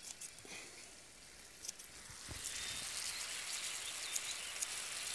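Cherry and red wine sauce sizzling in a frying pan over a high gas flame, with small crackles; the sizzle gets louder about two seconds in.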